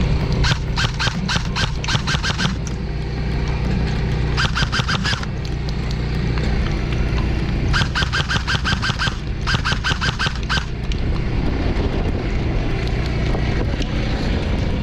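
Airsoft guns firing full-auto: four bursts of rapid, evenly spaced shots, the first about two seconds long, over a steady low drone.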